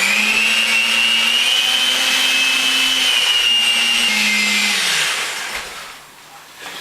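Electric kitchen mixer running with a steady high whine over a low hum that shifts slightly in pitch, then slowing and dying away about five seconds in.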